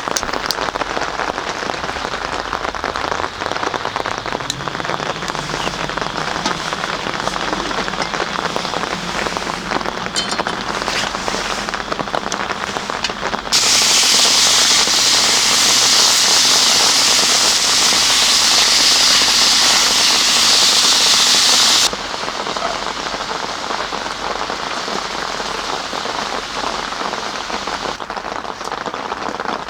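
Steady rain falling. For about eight seconds in the middle a louder, higher hiss cuts in suddenly and stops just as suddenly.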